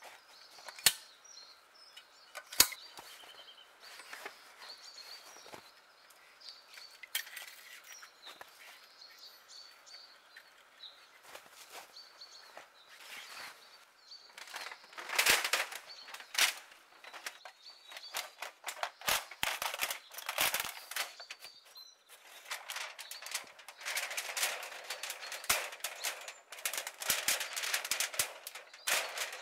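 Camping gear being handled and packed in snow: two sharp knocks early on, then scattered clicks and clinks with bouts of rustling and crunching, busiest in the second half.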